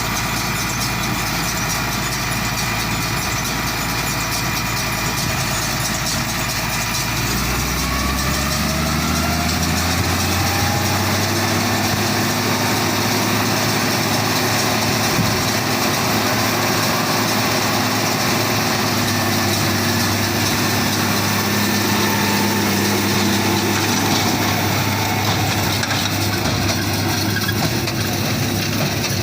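Engine of a wheat harvesting machine running steadily. About eight seconds in it speeds up, and it then holds at the higher speed.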